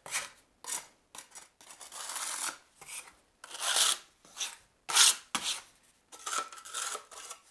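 Half-inch square-notch steel trowel scraping and combing modified thinset mortar across a self-leveling underlayment floor: about a dozen uneven strokes, some short, some drawn out.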